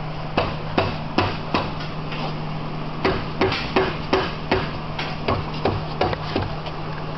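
Rubber mallet tapping evenly around a Ford Focus SVT Getrag transmission's bell housing, about two to three blows a second, to break the housing free of the case.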